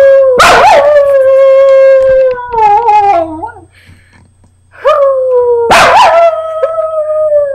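A small dog howling in two long, drawn-out howls, the second starting about five seconds in; each holds a steady pitch and then slides lower and wavers at its end.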